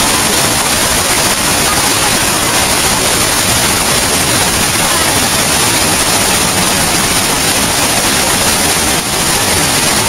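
Stream whitewater rushing and splashing over boulders in a cascade, a loud, steady rush of water.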